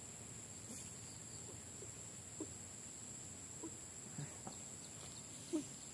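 Faint outdoor ambience: a steady high-pitched tone with a few short, faint animal calls, the loudest about five and a half seconds in.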